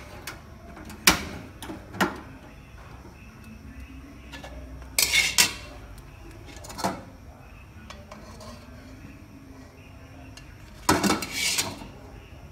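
Metal spatula clacking and scraping against an aluminium wok in short bursts, about five times, with quieter stretches between.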